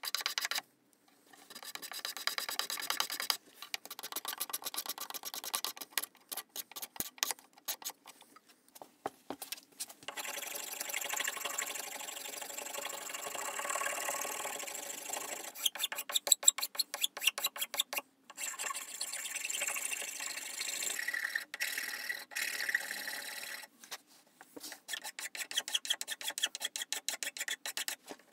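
A hand file scraping across a wooden maple saw handle as it is shaped, in quick back-and-forth strokes. The strokes pause briefly a few times.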